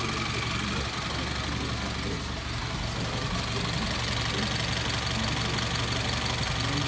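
Austin 10's side-valve four-cylinder engine idling steadily.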